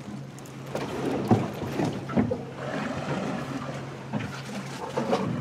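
Boat engine running with a steady low hum, with a few scattered knocks and handling noises, loudest between one and two and a half seconds in.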